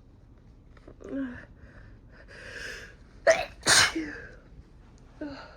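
A woman sneezing, brought on by sniffed chhinkni sneezing herb. A catch of breath and a drawn-in inhale build up, then the sneeze comes out in two sharp, loud bursts in quick succession, followed by a short breathy sound near the end.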